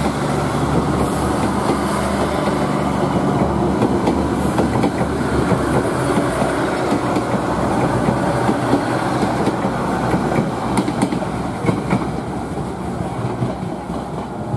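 KAI Kereta Inspeksi 4 inspection train passing close by, its wheels clattering over the rail joints in a steady run of clicks and rolling noise that fades near the end as the last car goes by.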